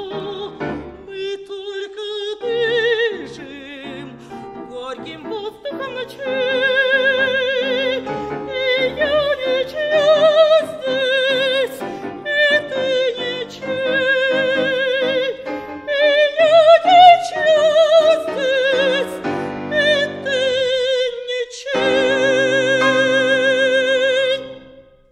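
An operatic woman's voice sings long, high notes with wide vibrato over tango accompaniment. It ends on a held note of about three seconds that cuts off near the end.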